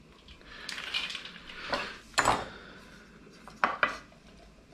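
Small bowls clinking and knocking as they are handled and set down on a wooden cutting board, with a soft shuffle of fava beans. There is one sharp clink about two seconds in and two quick knocks near the end.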